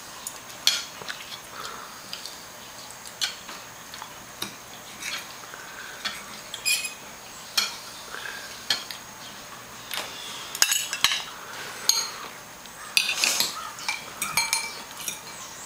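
Forks and knives clinking and scraping against dinner plates in scattered, irregular taps, a few of them ringing, busiest near the end.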